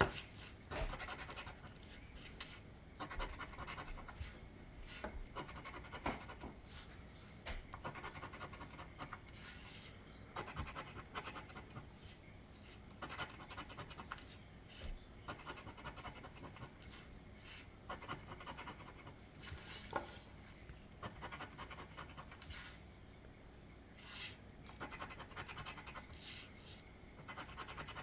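Scratch-off lottery ticket being scratched by hand, a run of short, irregular rasping strokes as the coating is scraped off the play area.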